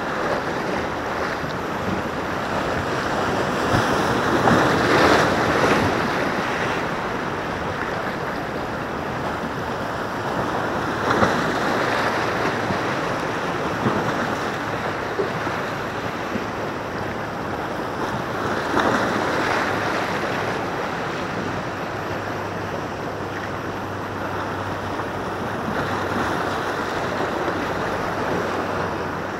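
Sea waves breaking and washing over shoreline rocks, a steady surf with louder surges about every seven seconds.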